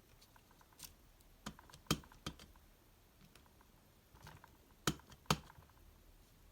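A few scattered sharp clicks and taps of craft supplies being handled on a work table, the loudest about two seconds in and two close together near the end.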